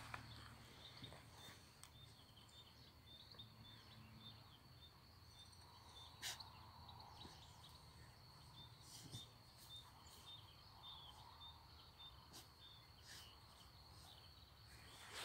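Near silence, with faint, regular high chirps about twice a second from a small creature in the meadow, and a single click about six seconds in.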